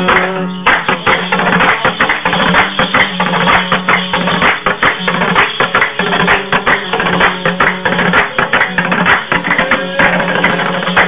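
Dambura, the Afghan long-necked two-string lute, strummed fast and evenly in an instrumental passage, over a steady low drone note.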